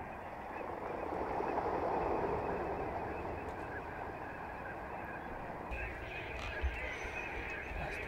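A large flock of ducks calling on open water: a dense, continuous chatter of many overlapping calls, swelling louder about a second in and easing off after about three seconds.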